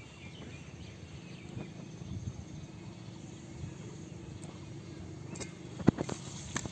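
Steady outdoor background with a low hum, a few faint clicks, and one sharp knock about six seconds in as the bamboo trap and the aluminium pot are handled.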